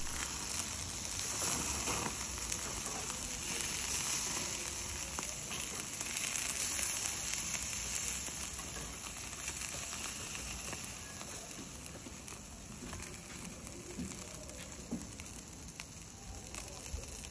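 Seasoned chicken sizzling on a wire mesh grill over binchotan charcoal: a steady high hiss with small crackles, slowly fading toward the end.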